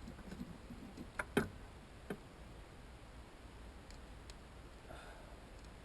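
A few sharp clicks and a knock from handling a bicycle chain being fitted by hand, the loudest about a second and a half in and another about two seconds in, then only faint ticks.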